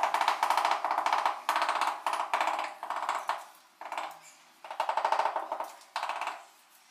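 Bursts of rapid rattling clicks as a ceramic wall tile is tapped and worked into a bed of cement mortar. About six bursts come in short runs with brief pauses between them.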